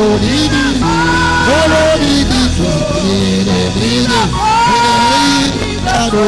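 Worship music: long held notes with a voice singing over them in sliding, bending phrases.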